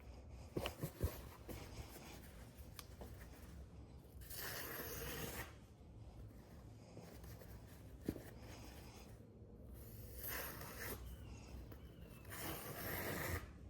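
Freshly stropped knife edge slicing through a hanging paper towel: a few light knocks in the first second, then three soft papery slicing strokes about a second long, the first around four seconds in, the last near the end. The cut is the sharpness test, judged by ear: an edge that catches and tears is 'grabby' rather than sharp.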